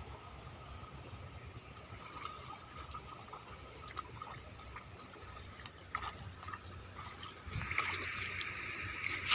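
Shallow stream water trickling and dripping, with scattered small splashes. Louder splashing comes in about three-quarters of the way through.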